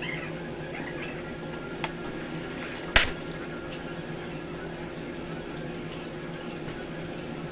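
A steady low hum, with a small tick a little before two seconds in and one sharp, loud knock of hard objects about three seconds in.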